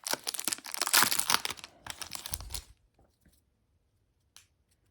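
Baseball card pack wrapper being torn open and crinkled, a dense crackling that stops a little under three seconds in. One faint tick near the end.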